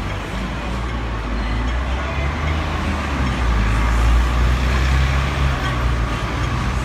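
City street traffic: a steady low rumble of passing motor vehicles, swelling a little about four seconds in.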